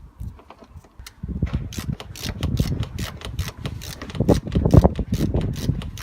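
A Torx driver turning the door handle's retaining screw loose inside the Mercedes W205 door: rapid clicking and scraping that starts about a second in.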